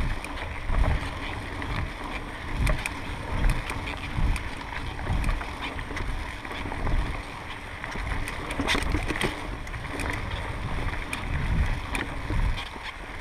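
Mountain bike descending dirt singletrack at speed: wind buffeting the camera microphone in low rumbling gusts, over the rush of tyres on dirt and leaves, with frequent sharp clicks and rattles from the bike jolting over bumps.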